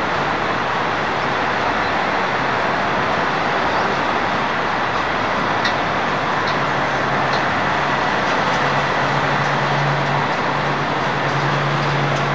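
Concrete mixer truck's diesel engine running as the truck pulls forward and turns. Its low hum grows stronger about two-thirds of the way in, over a steady hiss of site noise.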